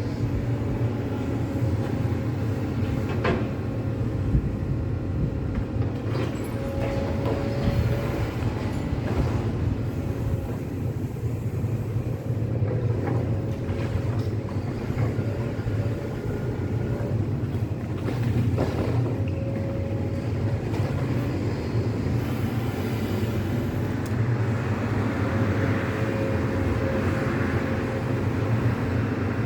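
Heavy crawler excavator's diesel engine running steadily under load, with a thin steady whine over the low drone and occasional faint knocks of demolition debris.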